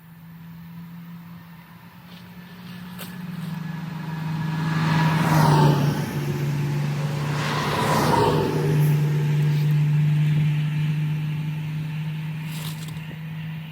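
Ventrac compact tractor engine running with a steady low hum. Two loud swells of noise rise and fall over it, about five and eight seconds in.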